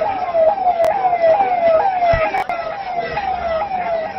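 Siren sounding a fast, repeating falling tone: each sweep drops in pitch in under half a second and starts again, a little over twice a second.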